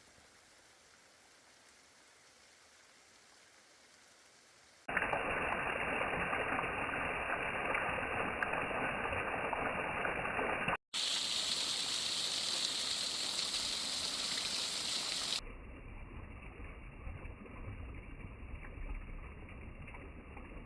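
Rushing water of a waterfall: steady noise that starts abruptly about five seconds in after faint hiss, changes character suddenly near the middle, and drops to a lower level for the last few seconds.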